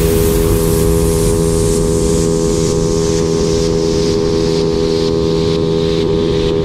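Small-displacement motorcycle engine running at a steady speed while riding, a constant drone with a rushing hiss that swells and fades in even pulses.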